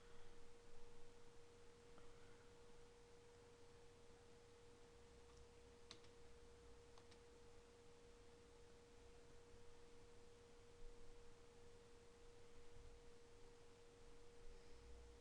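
Near silence: a faint steady hum on one pitch, with a couple of faint clicks.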